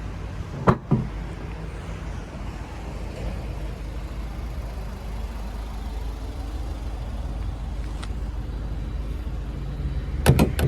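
Diesel engine of a Renault Master van, 2.3 litres, idling steadily. Two short knocks come about a second in, and a quick cluster of clicks near the end.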